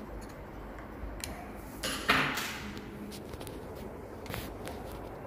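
Short clicks and knocks of the Wharfedale Diamond 9.1 bookshelf speaker's woofer being handled and worked loose from its cabinet. There is a louder scrape about two seconds in.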